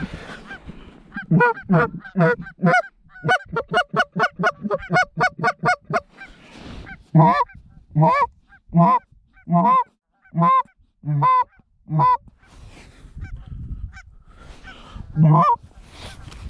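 Loud goose honking: a quick, even run of short honks, about four a second, for several seconds, then single honks spaced a little under a second apart, and one more near the end.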